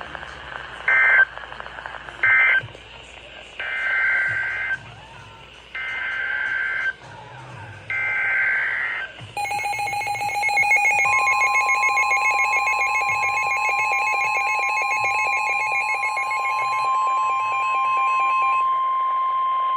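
Emergency Alert System data bursts. Two short bursts close out the marine warning as its end-of-message code. Then three longer bursts, about a second each, carry the header of the next alert. The alert tone follows: a pulsing, buzzing alarm, joined about a second later by a steady single tone, with the pulsing part stopping near the end while the steady tone holds.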